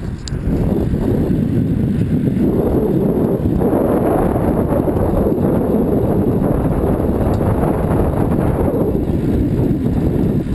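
Wind buffeting the microphone of a bike-mounted action camera, mixed with the mountain bike's tyres rolling over a concrete path: a steady, loud rushing noise.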